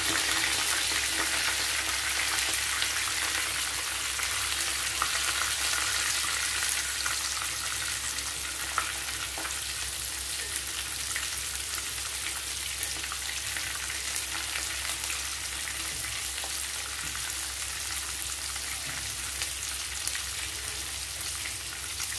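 Mutton seekh kebabs sizzling steadily as they shallow-fry in hot oil in a pan, with a slotted metal spoon now and then clicking against the pan as it turns them.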